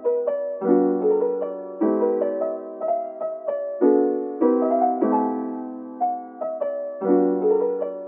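Piano music: chords struck about once a second, each fading away before the next, over a slower-moving melody.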